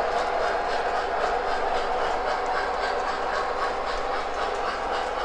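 MTH O scale model freight train rolling past on its track, a steady rumble of hopper-car wheels on the rails with light clicking.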